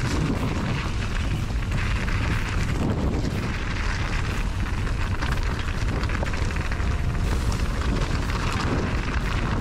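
Wind buffeting the microphone with a steady low rumble, the noise of riding along a trail.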